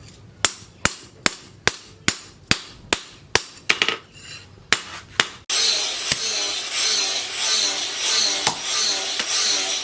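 Steady hand-hammer blows on steel at the anvil, about two and a half strikes a second, each with a short ring. About five seconds in it cuts abruptly to a continuous harsh rasping metalwork noise with a rhythmic warble.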